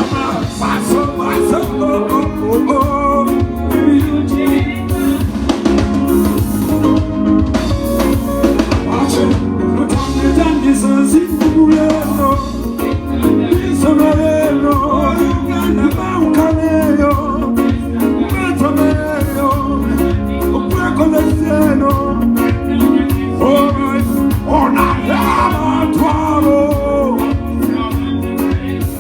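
A band playing a song at a sound check: drum kit, guitar and bass under a singing voice, loud and steady throughout.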